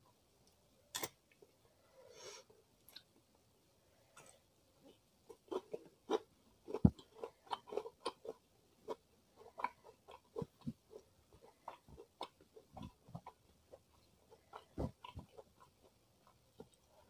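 Close-miked chewing of food, with a quick run of short, sharp crunchy clicks and mouth sounds that starts a few seconds in.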